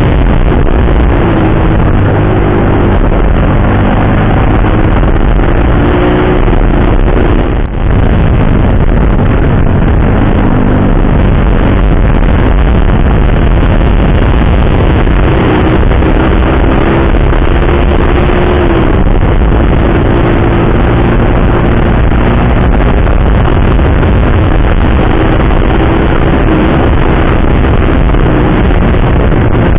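Wind rushing over the microphone of a Yamaha sport motorcycle riding at speed, with the engine's note rising and falling underneath. The noise drops out briefly about eight seconds in.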